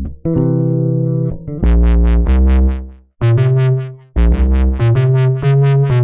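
Electronic dubstep music: heavy pitched bass and synth notes cut into chopped phrases that stop and restart about once a second, with a pulsing wobble on top.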